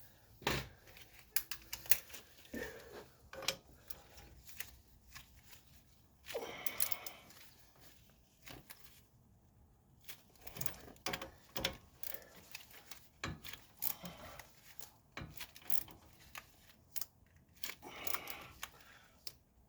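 Irregular metallic clicks and clinks of hand tools, a socket and ratchet being fitted and worked on suspension bolts, with a few brief scraping rustles.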